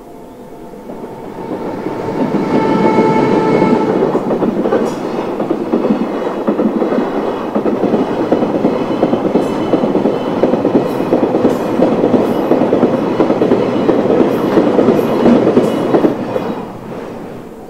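Freight train of tank wagons rolling past over a level crossing: a steady rumble of wheels on rail with repeated clickety-clack from the rail joints. It builds over the first couple of seconds and fades near the end as the last wagons pass.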